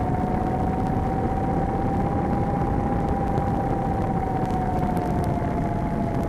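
Electric motor and propeller of a Skywalker FPV plane running at steady throttle in flight: a steady whine that drifts slightly in pitch, over heavy wind rush.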